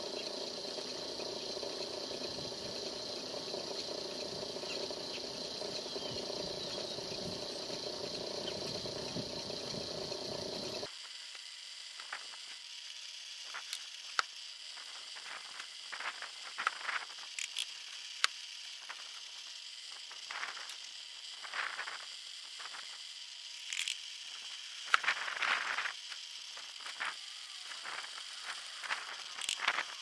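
An old belt-driven electric drill press running steadily while drilling out a hole in a small steel part. The running stops abruptly about 11 seconds in. After that come scattered light metallic clicks and rattles of the part and tools being handled.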